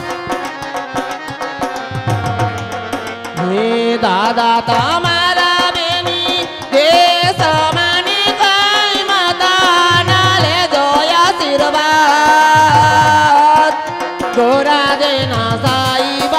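Live Gujarati devotional folk music: tabla and a barrel drum keep a rhythm under keyboard. About three and a half seconds in, a voice begins singing through the microphone over the accompaniment.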